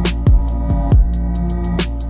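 Electronic music with a steady beat. Deep kick drums and quick hi-hat ticks play over held synth notes, with a strong snare-like hit at the start and another near the end.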